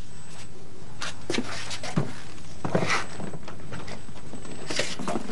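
A few faint footsteps and light rustles over a steady background hiss.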